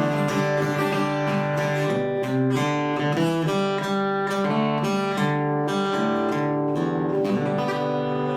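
Acoustic guitar playing an instrumental passage, a run of single picked notes and chords ringing and changing steadily.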